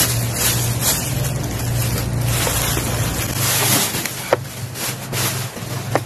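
Plastic bag rustling and crinkling as a vacuum cleaner is pulled out of its wrapping, with a sharp knock a little after four seconds, over a steady low hum.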